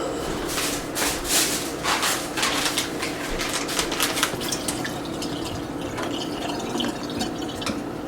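Water running from a kitchen tap and splashing in the sink in irregular bursts, during cleanup of spilled syrup, easing off about halfway through.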